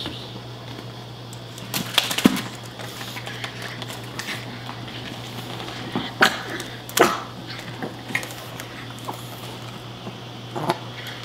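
Plastic clacks and knocks from a small dog tussling with a wheeled robot toy dog: a cluster of sharp knocks about two seconds in, then single ones around six, seven and near the end, over a steady low hum.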